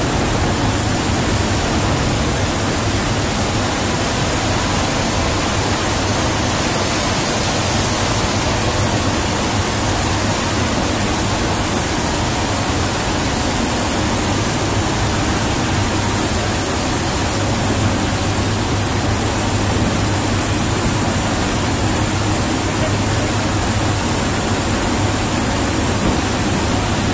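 C-130J Super Hercules in flight, heard from inside the cargo hold with the side paratroop door open: a loud, steady rush of slipstream wind with the low drone of its four turboprop engines underneath.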